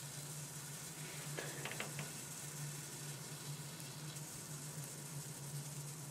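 Hydrogen peroxide fizzing faintly as it decomposes over a manganese dioxide catalyst, giving off oxygen bubbles that burst at the surface. A short cluster of faint crackles comes about one and a half seconds in, over a steady low hum.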